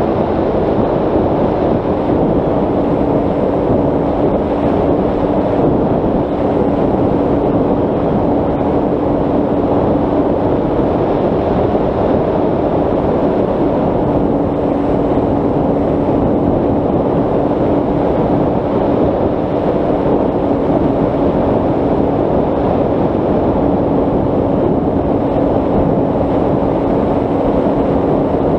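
Brushless electric motor and propeller of a Bixler 3 RC plane in cruising flight, heard from the onboard camera as a steady drone that dips slightly in pitch in the first couple of seconds, with wind rushing over the microphone.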